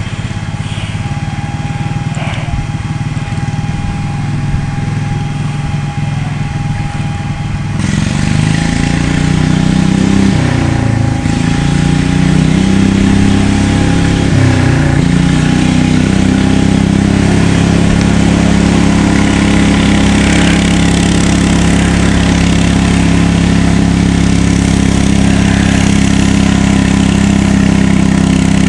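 Pulling garden tractor's engine rising sharply in revs about eight seconds in, as it takes up the weight-transfer sled. Its pitch sags twice under the load, then it runs hard at steady high revs for the rest of the pull.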